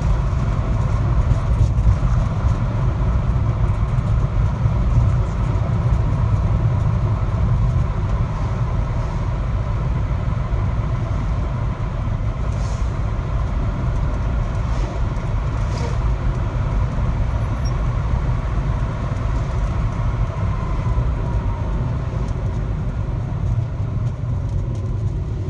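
Car driving at speed, heard from inside the cabin: a steady low road and drivetrain rumble with a faint whine that slides down in pitch about twenty seconds in. The owner is listening for an abnormal noise that he says shows up above 60 km/h.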